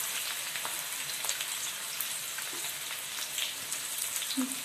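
Chopped onion and green chillies sizzling steadily in hot oil in a kadhai, with faint crackles, as the onion starts to fry.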